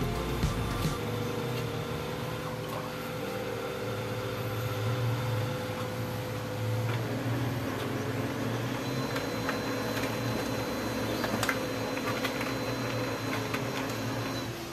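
Brother MFC-L2740DW laser copier running a copy: its motors and fan hum steadily, the tone shifts about halfway through, and a few clicks come in the second half as the sheet is fed out.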